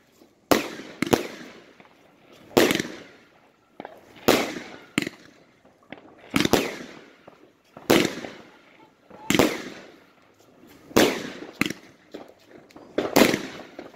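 Fireworks firing shot after shot at a fairly even pace, about one every second and a half. Each is a sharp bang that trails off in a hiss, about ten in all.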